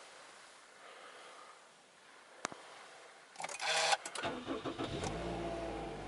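Toyota Voxy minivan engine being started: a single click, then about a second later the starter cranks briefly and the engine catches and settles into a steady idle.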